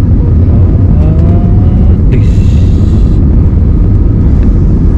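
Airbus A320-family jet on its landing roll, heard from inside the cabin: a loud, steady low rumble of the engines and the wheels on the runway. A faint rising whine comes in about a second in, and a brief hiss comes about two seconds in.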